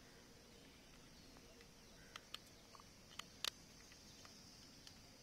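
Near silence, with a few short faint clicks about two to three and a half seconds in from a small action camera being handled and pressed in the hands, over a faint steady high hiss.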